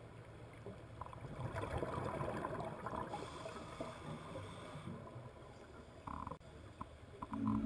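Muffled underwater noise heard through a camera's waterproof housing: a low rumble with a stretch of bubbling, crackling sound in the first half.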